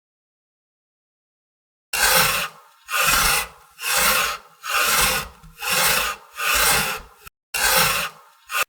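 A rhythmic rasping sound effect: seven noisy strokes, about one a second, starting about two seconds in.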